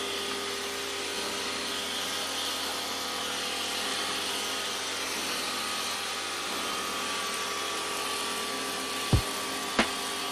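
Stanley SXPW22E electric pressure washer running steadily, its lance spraying foam from the foam bottle onto a car's bodywork: a constant spray hiss over a steady motor hum. Two short sharp knocks near the end.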